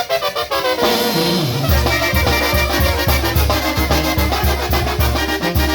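Sinaloan brass band (banda) playing, with trumpets and trombones carrying the tune; about a second and a half in, the low bass comes in with a steady beat.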